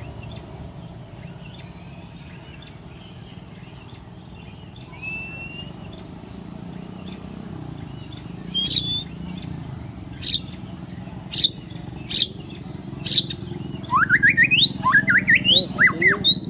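Songbird singing over a steady low background rumble: scattered short chirps at first, then loud sharp calls every second or so from about halfway, and a quick run of rising whistled notes near the end.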